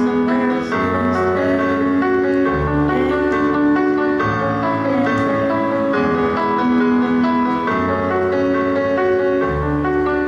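Piano backing track playing an instrumental passage, with no singing.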